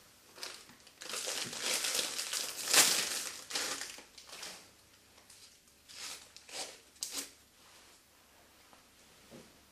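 Bandage packaging crinkling and rustling as a bandage roll is unwrapped and handled: a dense stretch of crinkling in the first half, then a few short separate rustles.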